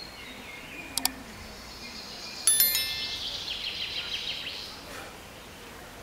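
Subscribe-button animation sound effects: a sharp mouse click about a second in, then a bright bell-like chime with a run of short high notes about two and a half seconds in, over faint outdoor background.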